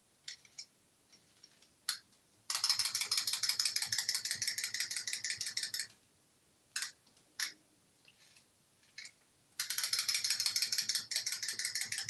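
Clockwork mechanism of small plastic wind-up Easter toys (a yellow chick and a white bunny) clicking rapidly as they are wound and run. There are two runs of about three seconds each, with a few single clicks in between.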